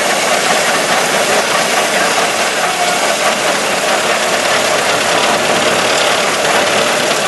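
Ford Model T's four-cylinder engine running steadily as the car drives along the road, mixed with a steady rushing noise of travel.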